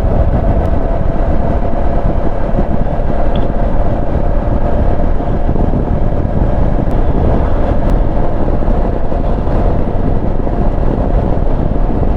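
Motorcycle riding along at a steady pace: a continuous engine drone mixed with wind and road noise, with no change in pitch or loudness.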